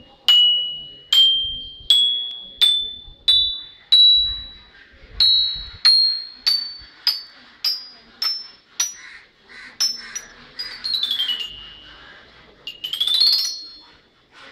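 Toy xylophone with hollow tube bars struck one note at a time with a mallet, each note ringing and dying away, climbing steadily up the scale as the tubes get shorter. Near the end the mallet sweeps quickly down the bars and then back up.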